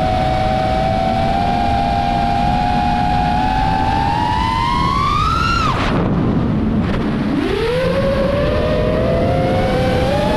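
iFlight AOS 5 FPV quadcopter's brushless motors whining. The pitch climbs steadily to a peak about five and a half seconds in, drops away suddenly as the throttle is cut for a flip, then rises again from about seven seconds. Wind rushes over the onboard microphone throughout.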